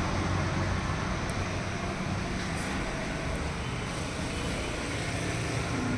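Steady road traffic noise from a nearby main road, a continuous hum of passing engines and tyres.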